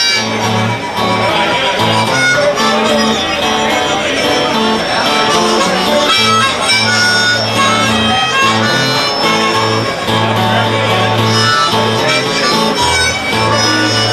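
Blues harmonica playing an instrumental break over guitar accompaniment, with a steady repeating bass line underneath.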